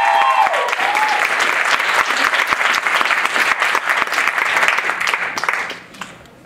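Audience applauding, with a few whoops in the first second. The clapping dies away near the end.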